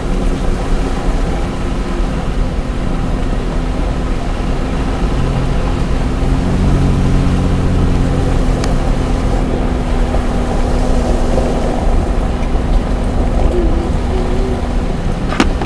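Vehicle driving, with a steady low engine and road rumble; the engine note swells for a few seconds midway. A single sharp click near the end.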